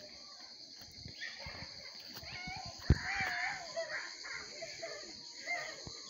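Children's high-pitched calls and shouts, rising and falling, from about two to four seconds in and again near the end, over a steady high insect chorus. A single sharp knock about three seconds in is the loudest sound.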